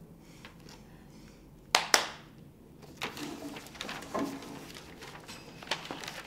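Two sharp knocks close together about two seconds in, then shuffling, paper handling and footsteps as students get up from their desks and move about.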